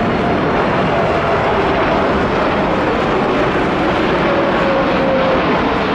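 Jet engines of a Boeing 747 freighter on final approach with gear and flaps down, passing close by as a loud, steady jet noise. Faint tones in the noise slide slowly downward.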